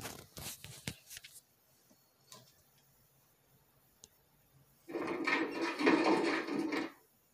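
Glitchy crackles and clicks of the Artisan Entertainment logo's static effect, played from a DVD on a TV, in the first second and a half. About five seconds in, a loud, dense two-second burst of sound comes from the DVD menu and cuts off sharply.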